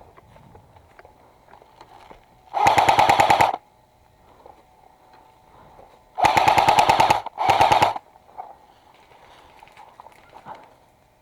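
Airsoft gun firing on full auto in three rapid bursts: one of about a second a few seconds in, then a second of about a second, quickly followed by a shorter one.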